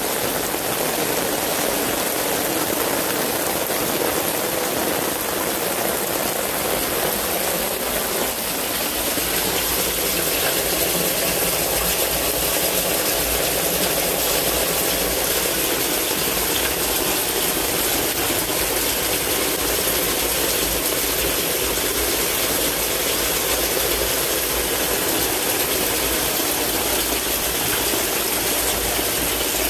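Steady rushing noise of a torrential downpour and storm water pouring through a yard drainage system, growing slightly fuller about eight seconds in.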